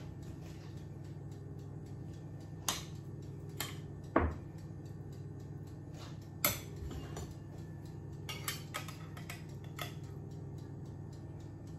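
Metal spoon and spatula clinking against a stainless steel saucepan and a glass baking dish while tomato sauce is scooped onto a plate and a stuffed pepper is lifted. There are a handful of short, sharp clinks spaced a second or two apart, over a steady low hum.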